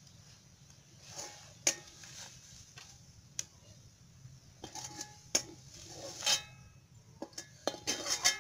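A metal spoon clinking and scraping against a ceramic plate in irregular strikes as cut vegetable pieces are pushed off it. Some clinks leave a brief ringing tone.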